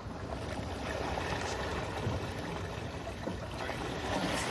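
Water sloshing and splashing around a waterlogged pedal boat.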